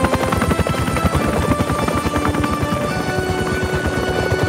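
Cartoon helicopter sound effect: a fast, steady rotor chop as the helicopter flies, under background music.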